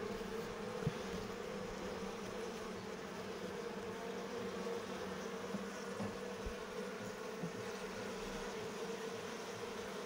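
A mass of honey bees buzzing in one steady, unbroken hum with a clear low pitch, a colony stirred up as its hive is opened and smoked for the honey harvest. A few faint ticks sit under the hum.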